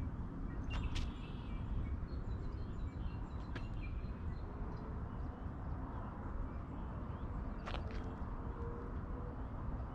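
Outdoor ambience: a steady low rumble with a few faint bird chirps and three or four sharp ticks scattered through it.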